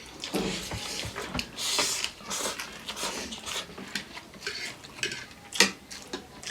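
Close-up eating sounds from a chicken-feet and noodle meal: wet chewing and smacking with scattered small clicks, and one sharp click about five and a half seconds in.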